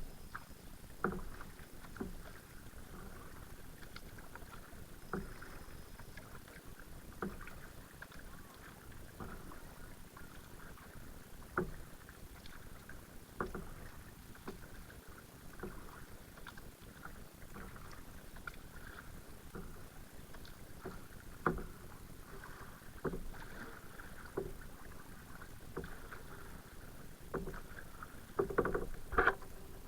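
Kayak paddling: the paddle dipping into the water and dripping, with light knocks and splashes every second or two and a louder cluster of them near the end.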